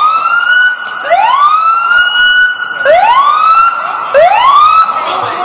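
Emergency vehicle siren sounding loudly in repeated rising sweeps: four in a row, each climbing quickly and then holding its pitch, about one every one and a half seconds.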